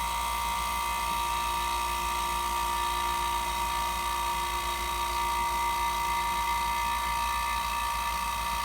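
Hilmor 9 CFM refrigeration vacuum pump running steadily with its gas ballast closed, early in pulling down a system, before the vacuum reaches the micron range.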